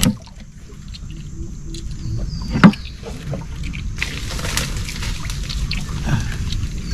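Water lapping and sloshing against the hull of a small wooden boat, over a steady low rumble, with one sharp knock about two and a half seconds in.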